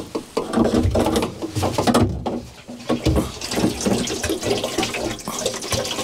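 Diesel running out of a siphon hose into a can, splashing as the can fills.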